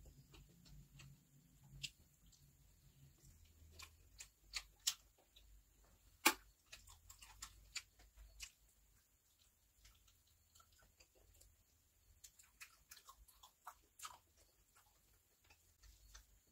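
Faint close-miked eating sounds: irregular soft clicks and smacks of chewing and lips, with fingers picking at rice on a steel plate. One sharper click comes about six seconds in.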